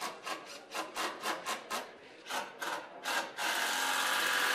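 A quick run of short strokes on wood, about four a second, then about three and a half seconds in a cordless impact driver starts up loud and steady, driving a screw through the top-rail board into a wooden post.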